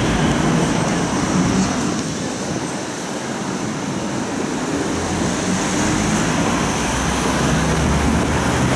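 Steady city street traffic noise, with cars and trams running along the road.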